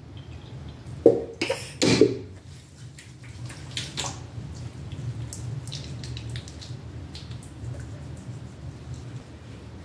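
A pump bottle of face cleanser dispensing with loud squirting strokes about one to two seconds in, then hands rubbing the lather over a wet face with soft wet clicks, over a steady low hum.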